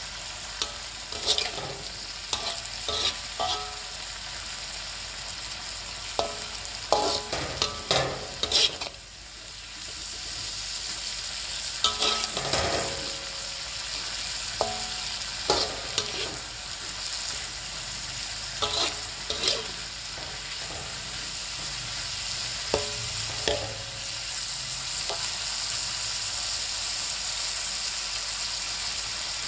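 Metal spatula stirring and scraping a stir-fry of kencur leaves, tempeh and anchovies around a wok, with sharp clicks against the pan over a steady sizzle. The spatula strokes come thickest in the first several seconds and then more sparsely, while the sizzle grows a little louder.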